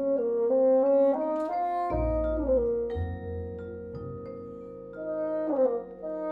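Vibraphone, bassoon and double bass playing together: a melody moving up and down in steps over ringing vibraphone notes, with low double bass notes about two and three seconds in.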